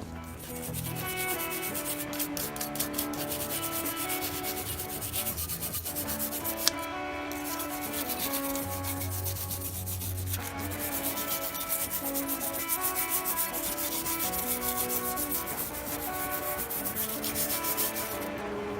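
Fast, repeated rubbing strokes of hand-cleaning an engine part, over steady background music.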